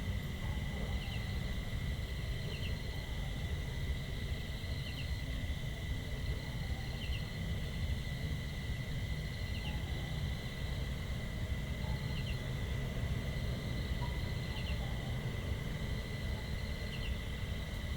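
Rural Thai outdoor ambience: a steady high insect drone with a short double chirp repeating about every two seconds, over a continuous low rumble.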